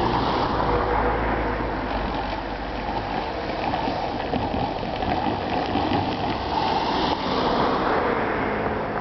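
Steady rushing rumble of vehicles passing at a railway level crossing.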